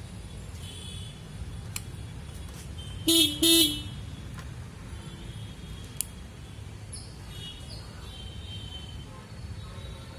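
A motorcycle horn gives two short honks in quick succession about three seconds in, over a steady low rumble. Single sharp clicks come a little before and a few seconds after.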